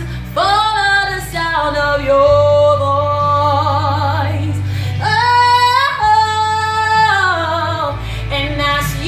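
A young woman singing solo, holding long notes with a wide vibrato. About halfway through she climbs to a higher held note, then steps back down, over a backing track of low sustained chords.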